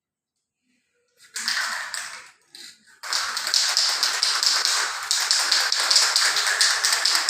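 Aerosol spray can of contrast paint being shaken hard, its mixing ball rattling in quick, even strokes; it starts with a couple of short shakes and then runs on steadily from about three seconds in.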